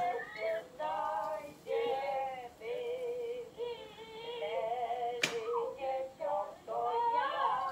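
High-pitched singing with music, with a single sharp click about five seconds in.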